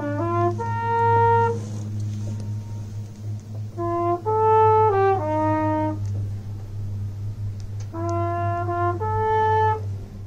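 A brass horn played solo in three short fanfare-like phrases of a few notes each, with pauses between, over a steady low hum. This is the traditional echo playing on the Königssee boat trip, where the pauses leave room for the echo off the rock walls.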